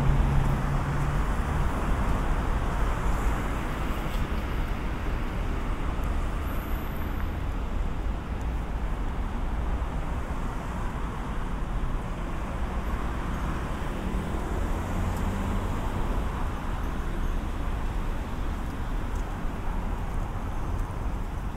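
City street traffic noise: a steady rush of road vehicles, with an engine hum swelling and fading as a vehicle passes about two-thirds of the way through.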